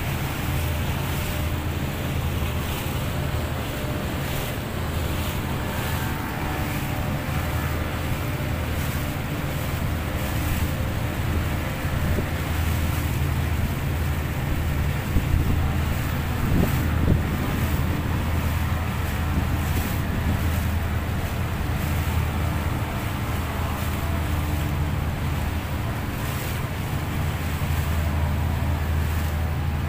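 Speedboat engine running steadily under way, a low drone, with wind on the microphone and water rushing past the hull.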